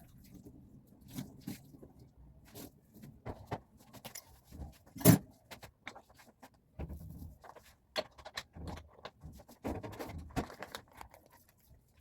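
Kitchen food-preparation handling sounds: scattered taps, clicks and knocks of utensils and items being moved, with one sharper knock about five seconds in.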